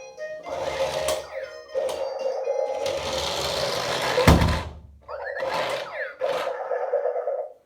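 A remote-control toy car's small electric drive motor whirs in spurts with a steady hum, broken by clicks and one heavy thump about four seconds in.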